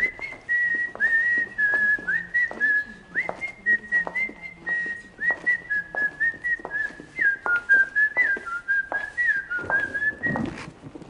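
A whistled melody of short notes with quick slides into many of them, mostly on its own with little accompaniment.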